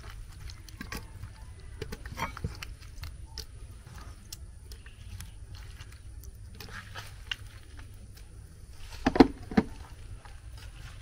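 Scattered light knocks and clicks of things being handled, with two louder knocks close together near the end, over a low steady hum.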